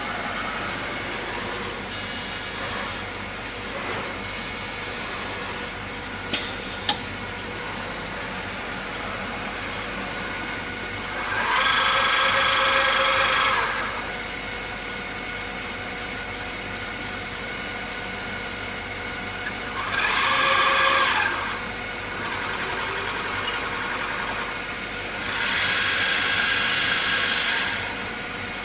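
Selective soldering machine running with a steady mechanical hum. It gives two sharp clicks about six to seven seconds in and three stretches of a louder whine made of several steady tones, each lasting two to three seconds.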